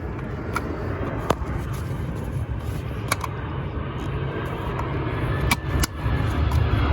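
Several sharp plastic clicks and knocks from hands working at the engine's plastic top cover, over a steady low rumble that grows louder toward the end.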